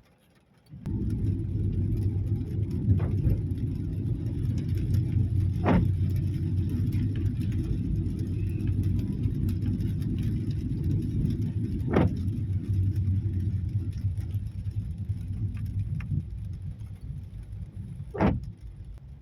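Steady low rumble of a car driving on a wet road, heard from inside the cabin. It starts suddenly about a second in and fades near the end. Three brief swishes about six seconds apart fit windscreen wipers on an intermittent setting.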